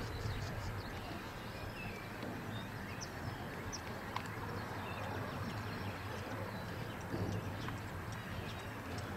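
Outdoor ambience: scattered short bird chirps over a steady low rumble of background noise.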